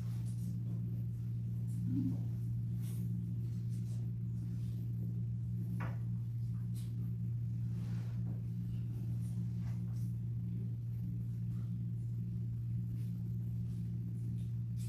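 Steady low hum in a small room, with a few faint knocks and shuffles of people moving about and settling into wooden pews.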